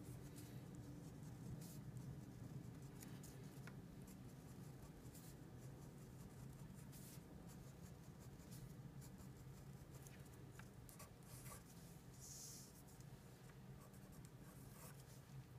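Marker pen drawing on paper: faint, short scratchy strokes at irregular intervals as lines and dashes are drawn, over a steady low room hum.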